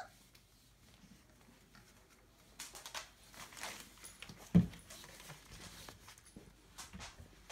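Litter of 27-day-old Entlebucher puppies moving about: rustling and scratching with scattered small clicks, and one loud low thump about halfway through.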